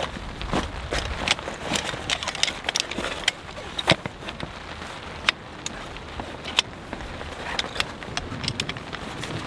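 A folding camp chair being pulled from its fabric stuff sack and unfolded: the sack rustles and the frame's poles click and knock as they swing open. The clicks come irregularly, with the loudest knock about four seconds in.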